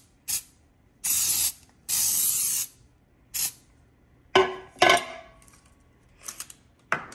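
Baker's Joy aerosol baking spray hissing into a bundt cake pan in four bursts, the middle two longer. About four seconds in come two sharp clanks, followed by a few lighter clinks and a knock near the end.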